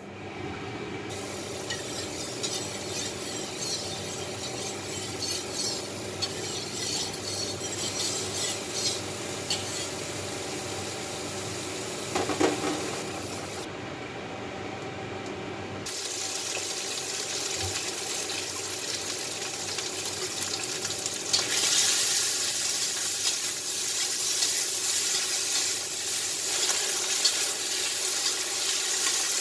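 Steady hiss of oil heating in a steel wok, growing into louder sizzling about two-thirds of the way through as prawns fry in the hot oil, with a metal spatula scraping and stirring them against the pan.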